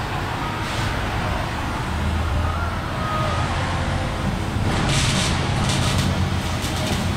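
Steady low machine hum, with a burst of crackling hiss about five seconds in as the muffler is welded into the exhaust pipe and sparks fall.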